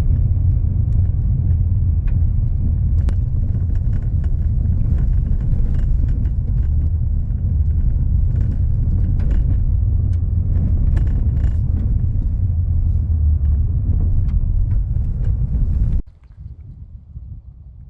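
Steady low rumble of a vehicle in motion, with faint ticks and rattles over it. It cuts off abruptly near the end.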